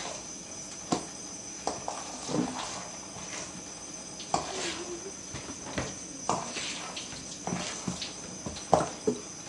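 A mixing utensil stirring thick brownie batter, knocking and clicking against the mixing bowl at irregular intervals, about once or twice a second.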